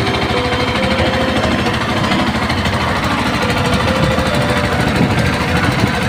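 Small boat engine running steadily, with a fast even pulsing beat, as the boat travels.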